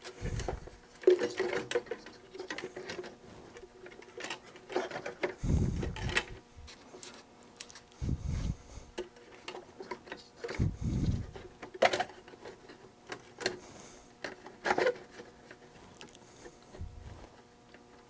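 Handling noises from a computer circuit board being set onto a metal chassis and seated: scattered clicks and taps, with a few dull thumps.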